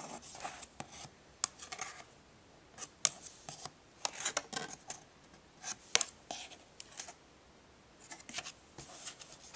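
Hands handling a stiff cardboard lift-the-flap board book, with several sharp clicks from the card flaps and pages and bouts of scratchy rubbing in between.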